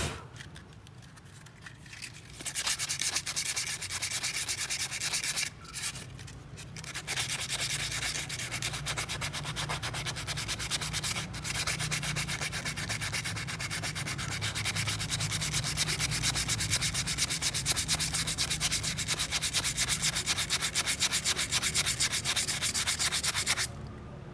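Sandpaper rubbed by hand in quick, even strokes against a Yamaha Mio scooter's CVT clutch part, scouring off grime. The rubbing pauses briefly near the start and again about six seconds in, then runs on steadily.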